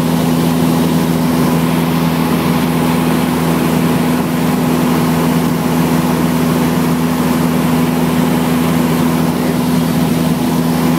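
A small Cessna's piston engine and propeller running steadily in flight, heard inside the cabin as a loud, even drone with two strong low hums.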